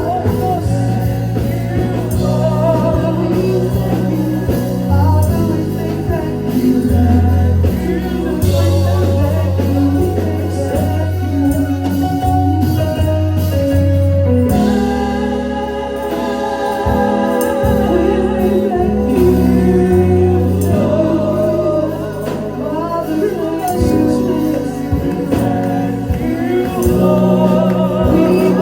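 Gospel worship music: singing over a band with sustained bass and keyboard notes.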